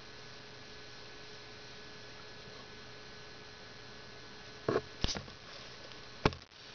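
Steady electrical mains hum with a faint hiss, broken by three short sharp taps near the end.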